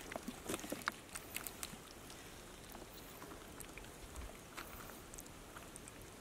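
Live eels and a snakehead fish squirming in a wet plastic bucket, giving faint scattered wet clicks and pattering, busiest in the first couple of seconds and sparser after.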